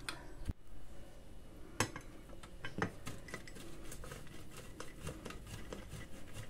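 Suluguni cheese rubbed on a stainless steel box grater: irregular scraping strokes with light clicks of metal. At the very start a fork scrapes in a glass baking dish.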